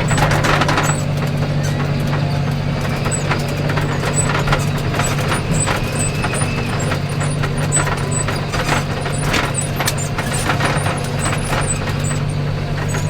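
Tractor engine running steadily under load while it pushes through drifted snow, with frequent rattles and knocks from the machine.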